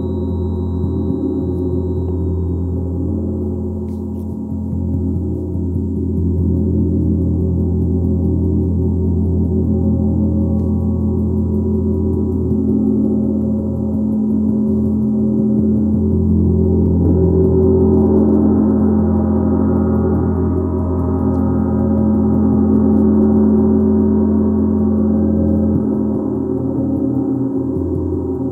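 A gong played continuously, a dense sustained wash of many overlapping tones. It swells louder through the second half.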